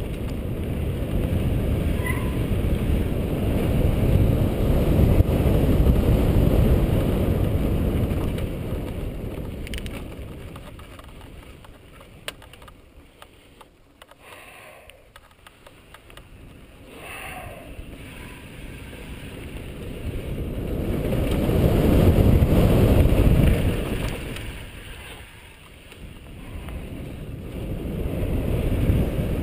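Wind buffeting the camera microphone, together with the mountain bike's tyres rolling over dirt singletrack, as the bike rides along. The rumble swells and fades with speed: loud at first, dropping low about a third of the way in, where a few light clicks and rattles come through, then surging again about three quarters of the way in.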